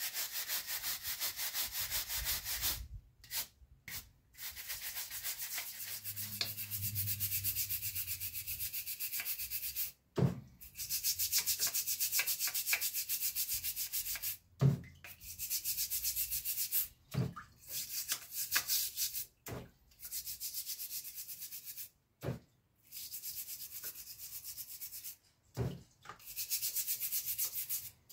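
Rust being scrubbed off a steel bayonet scabbard, first with a steel wire brush and then by hand over a basin. Runs of fast back-and-forth rasping strokes last several seconds each, broken by short pauses and a few brief knocks as the scabbard is handled.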